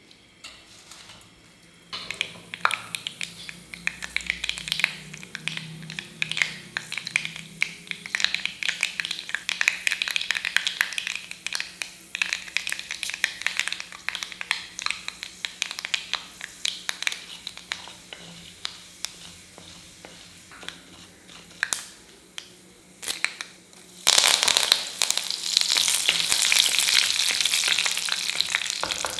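Mustard seeds popping and crackling in hot sesame oil in a stone pot, with dense sharp pops that thin out later. About 24 s in, a loud steady sizzle starts as curry leaves and green chilli hit the hot oil.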